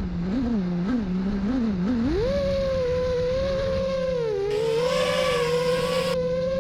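Brushless motors of a 5-inch FPV quadcopter whining, starting abruptly. The pitch wobbles up and down with the throttle, climbs to a higher whine about two seconds in, then holds there with slow swells and dips. There is a rush of hiss around the middle.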